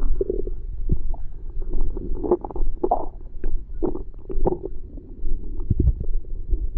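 Human stomach growling and gurgling: a run of irregular short gurgles and squelches over a steady low rumble.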